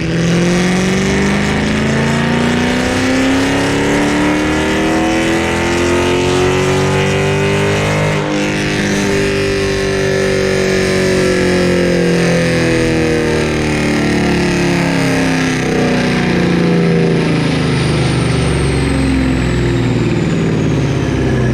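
Dodge Charger Daytona's 392 (6.4-litre) Hemi V8 at full throttle on a chassis dyno, exhausting through long-tube headers and catless mid-pipes. It is loud: the revs climb steadily for about eight seconds, break briefly, then wind down slowly as the pull ends.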